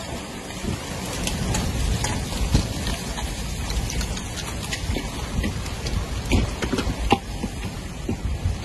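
Heavy rain and hail pelting down: a steady rush of rain with scattered sharp hits of hailstones striking the ground.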